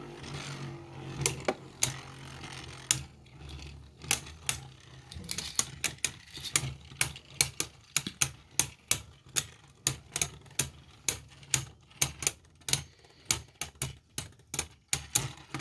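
Two Beybladės spinning in a plastic stadium and clashing: a run of sharp clicks, sparse at first and then about two to three a second, over a low steady spinning hum.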